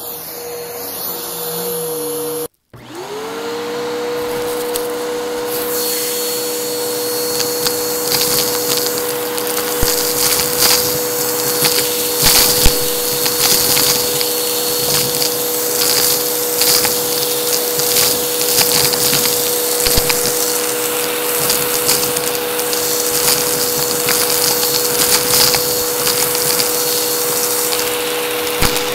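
Vacuum cleaner switching on about two and a half seconds in, its motor spinning up quickly to a steady whine. From a few seconds later it picks up a thick, clunky debris mix, and pieces click and rattle through the machine.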